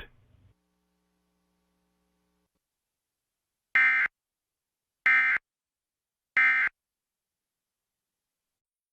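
Emergency Alert System end-of-message signal: the SAME digital data code sent three times as short buzzing data bursts about a second apart, marking the close of the alert.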